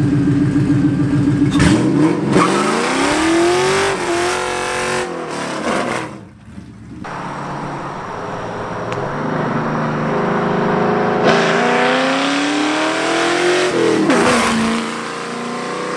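2002 Ford Mustang GT's 4.6-litre V8, running with its mufflers and catalytic converters deleted behind long-tube headers and an X-pipe, accelerating hard past the camera. The loud exhaust note climbs in pitch twice, once in the first few seconds and again about ten seconds in, with a brief drop between the pulls.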